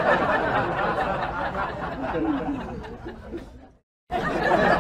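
Several people chattering and laughing together in a dense babble, which fades and cuts off abruptly near the end, then resumes a moment later.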